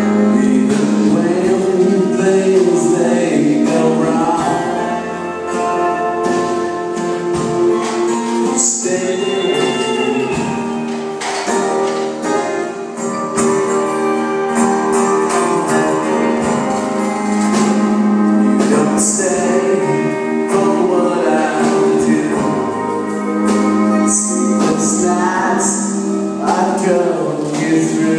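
Live music with singing over a band, played during a sound check.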